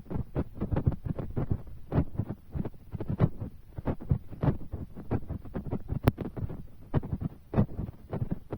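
Raindrops tapping close to the microphone in a dense, irregular patter of soft low thuds, with one sharp click about six seconds in.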